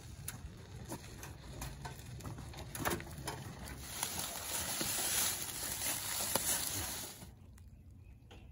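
Wheelbarrow loaded with rocks being pushed, with scattered knocks and clunks, then the wheel and footsteps crunching through dry leaf litter for about three seconds before it goes quieter.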